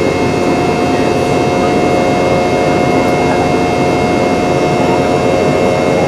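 Steady jet engine noise of a Boeing 717-200 heard inside the cabin, the rear-mounted Rolls-Royce BR715 turbofans giving a constant whine over a loud, even rush of air.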